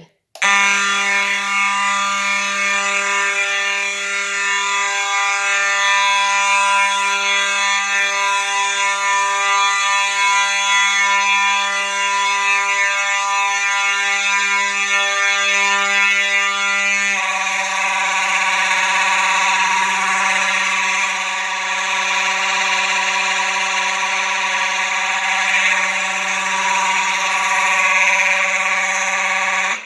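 Simplex 4903-9219 fire alarm horn sounding continuously with a steady buzzing tone. About 17 seconds in, the tone suddenly turns harsher and noisier. The owner finds this weird and wonders whether loose mounting screws, or a fault that got it pulled from service as a bad horn, is the cause.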